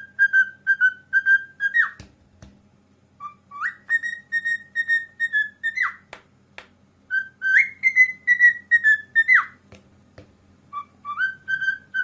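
Cockatiel whistling its song in four phrases of quick repeated notes, each phrase opening with a rising note, with short pauses between. The whistling goes with the bird's head-down, wings-out courtship display.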